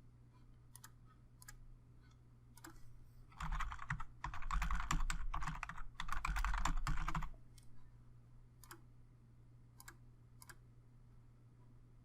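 Typing on a computer keyboard: a fast run of keystrokes lasting about four seconds, with a few single key clicks before and after it.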